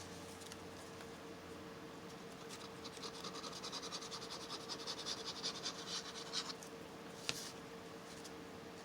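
Fingers rubbing over paper to press a freshly glued piece flat, a fast scratchy rubbing for a few seconds in the middle, followed by one short click, over a faint steady hum.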